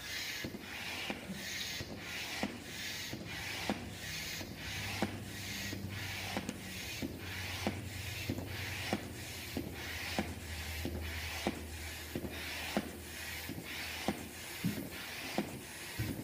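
Hand-operated floor air pump worked in steady strokes, about three every two seconds, each stroke a click and a rush of air as it inflates a latex balloon.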